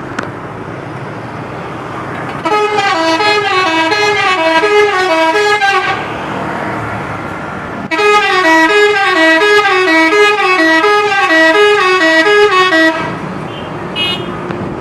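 A DAMRI bus's telolet horn, a multi-tone musical air horn, playing its quick repeating run of notes in two long, loud blasts a couple of seconds apart, over traffic noise.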